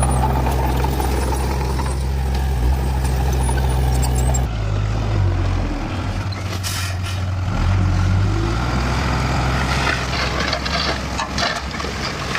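Heavy diesel construction machinery running: a steady engine drone that switches abruptly about four and a half seconds in to another machine working, its engine rising and falling, with short hisses.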